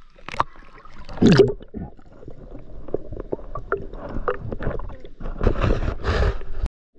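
Water splashing and gurgling as a spearfisher dives under from the surface, followed by muffled underwater clicks and rushing water against the camera. The loudest rush comes about a second in, with another long rushing stretch near the end before the sound cuts off suddenly.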